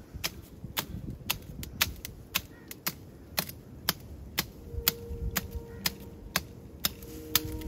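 A knife blade hacking at the woody stem of a bush to cut a branch: sharp, regular cracks, about two a second.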